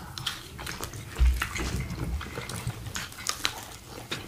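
Close-miked chewing and wet mouth sounds of two people eating, with short clicks and scrapes of forks on plates. A dull low bump about a second in is the loudest sound.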